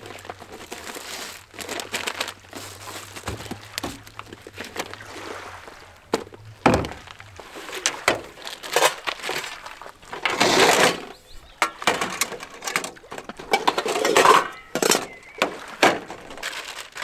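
Camp cooking gear being unpacked and set down on a checker-plate metal tailgate: irregular knocks, clinks and rustling of a bag and containers, with one sharper knock about seven seconds in.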